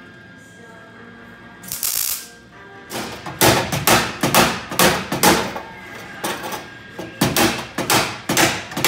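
MIG welder tack- and stitch-welding thin sheet-metal plates into a car body, its arc switched on and off in short bursts of sizzling noise, a few each second from about three seconds in. Background music runs underneath.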